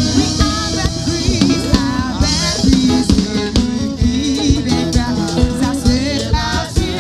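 Live gospel worship music: a woman singing lead into a microphone over a band with a steady drum beat.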